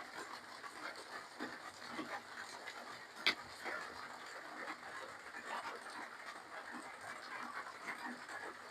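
Close-up eating sounds: chewing, smacking and slurping, with many small wet clicks and one sharp click a little over three seconds in.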